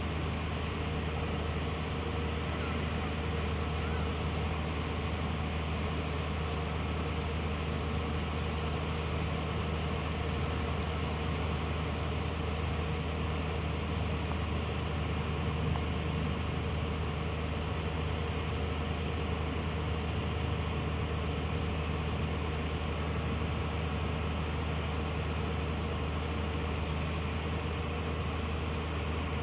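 Watermaster amphibious dredger's diesel engine running steadily while its excavator arm digs, a low, unbroken drone.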